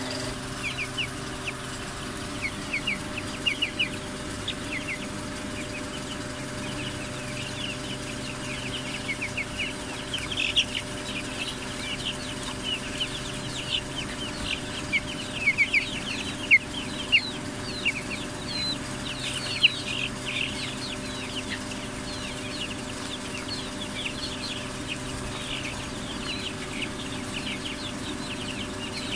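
A brood of young chicks, Lohmann Browns among them, peeping continuously: many short, high, downward-falling cheeps overlapping, busiest in the middle. A steady low hum runs underneath.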